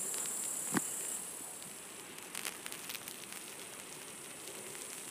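Insects chirring in a steady high buzz that fades out about a second in, with one sharp click just before; after that only faint scattered ticks and crackles remain.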